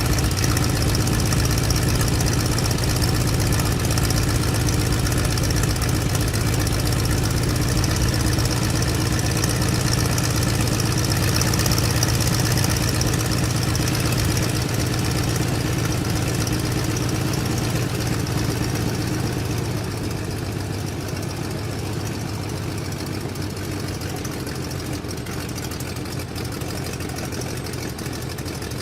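Stearman biplane's radial engine idling steadily, heard from the cockpit. It settles a little quieter about twenty seconds in.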